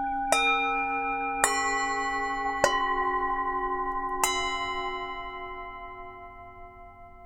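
Tibetan singing bowls struck four times in quick succession. Each strike adds new ringing tones over the ones still sounding, and the overlapping tones slowly die away.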